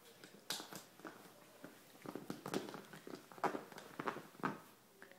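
A small dog gnawing and pawing at a capped plastic juice bottle, trying to get into it: irregular crackles and knocks of plastic, a few at first and then a quicker cluster in the second half.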